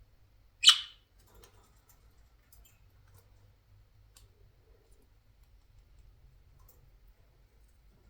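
Budgerigar giving one short, harsh chirp a little under a second in, followed by faint scattered clicks and scratches.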